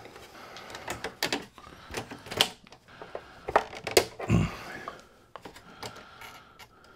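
Hard plastic clicks and knocks as a Corvette instrument cluster's black plastic rear cover is set onto the cluster housing and pressed into place, with a duller thump about four seconds in and fainter ticks after.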